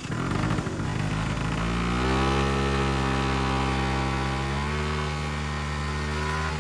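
Small motor scooter engine ticking over unevenly, then revving up about a second and a half in and running on at a steady pitch as the scooter pulls away.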